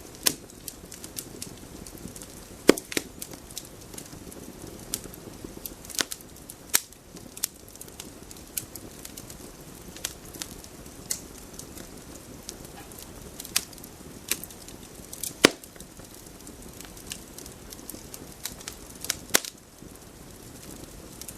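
Wood campfire burning: irregular sharp pops and crackles over a steady low rush of the flames. The loudest pops come about three seconds in and about fifteen seconds in.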